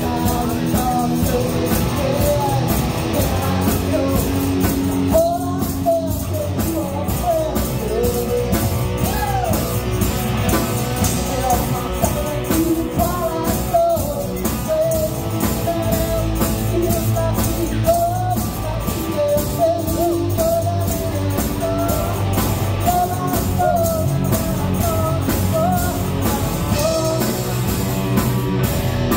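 Live rock band playing: a woman sings lead over electric guitar, bass guitar and a drum kit keeping a steady beat on the cymbals.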